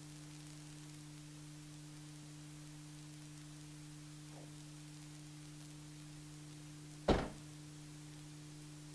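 A car's trunk lid slammed shut once, a single heavy thump about seven seconds in, over a steady low hum.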